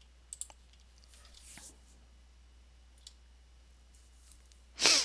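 A few sparse computer mouse clicks, with a short, louder burst of noise just before the end.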